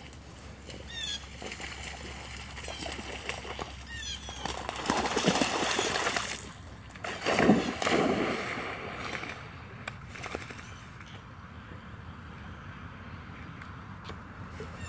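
Dogs splashing into pond water, with loud splashing in two spells about five and eight seconds in, then lighter sloshing as they swim.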